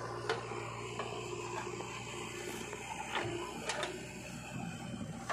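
JCB 3DX backhoe loader's diesel engine running steadily while its backhoe bucket tips red soil into a steel tractor trailer. A few sharp knocks sound as the load lands, the clearest a little after the middle.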